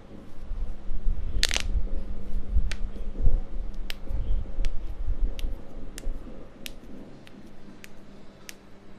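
Joints cracking under manual manipulation: about a dozen sharp pops and clicks, the loudest about a second and a half in, over a low rumble that fades out in the last few seconds.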